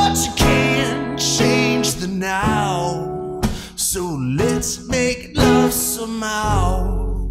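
Music: a man singing a melodic line with wavering vibrato and sliding pitch over guitar, and a deep low note coming in near the end.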